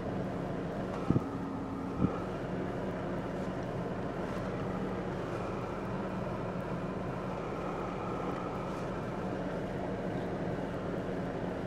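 Steady hum of an idling car heard from inside its cabin, with two short clicks about one and two seconds in.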